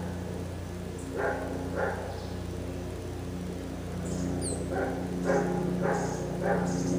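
A dog barking: two barks about a second in, then four more evenly spaced barks in the second half, over a steady low hum.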